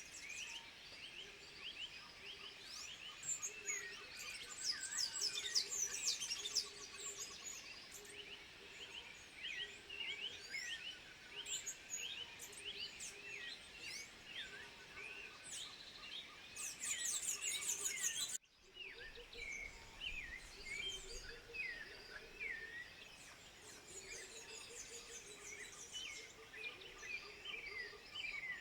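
A dense chorus of many short, high chirping and whistling animal calls, with a fainter low call repeating underneath. The sound drops out for an instant about two-thirds of the way through.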